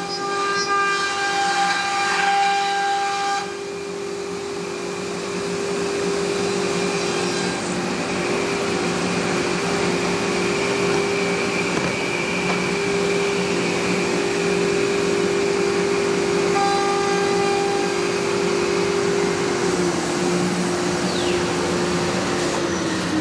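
Thermwood Cut Center CNC router running, its spindle cutting a sheet panel with a steady whine over a constant hiss, with extra higher tones in the first few seconds and again briefly later on. Near the end the whine drops in pitch as the spindle slows down.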